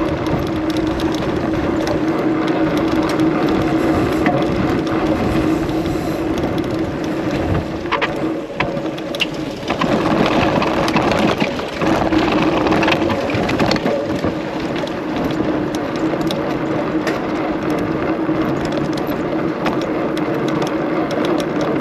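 Mountain bike's knobby tyre rolling fast over cobblestones: a steady hum with the bike rattling. About a third of the way in it breaks into a run of clattering jolts as the bike drops down a flight of stone stairs, then the steady hum returns.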